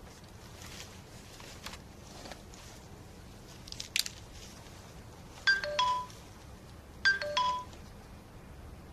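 Two identical short electronic notification chimes from a phone, about a second and a half apart, each a bright ping dropping to a lower tone; these are livestream alert sounds. A sharp click comes a little before them.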